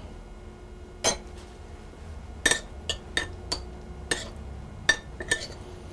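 Metal spoons clinking against a ceramic bowl and a glass bowl as pesto is spooned over gnocchi and the gnocchi are turned: about eight sharp, irregular clinks, some ringing briefly.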